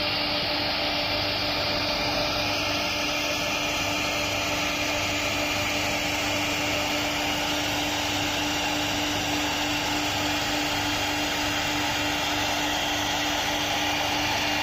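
CNC router spindle running steadily while its bit carves relief into a wooden panel: a constant hum over an even hiss.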